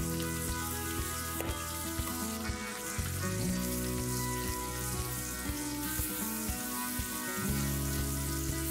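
Chicken drumsticks sizzling steadily as they fry in butter and oil in a pan, with background music carrying a steady beat.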